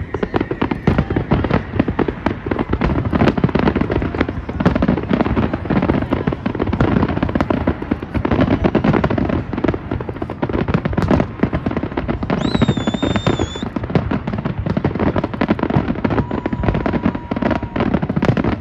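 Continuous barrage of New Year's fireworks: dense crackling and popping over rolling low booms, with a brief high whistle about twelve seconds in.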